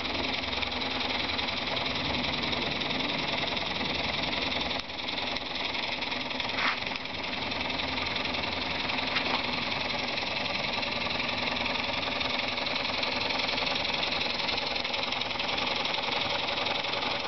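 Miniature brass model steam beam engine running steadily on steam from a Mamod Minor 1 boiler, with a fast, even beat and a constant hiss. The sound dips briefly about five seconds in.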